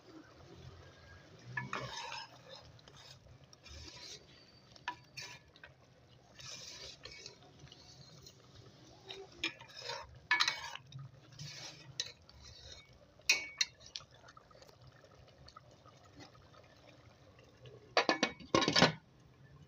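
A spoon scraping and clinking against a cooking pot as the food in it is stirred, in irregular short strokes with pauses between, the loudest pair near the end.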